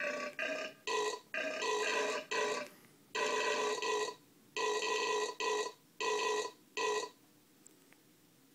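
Toy burp piano sounding recorded burps as its keys are pressed: about ten burps in quick succession, the first few at a different pitch from the rest, stopping about seven seconds in.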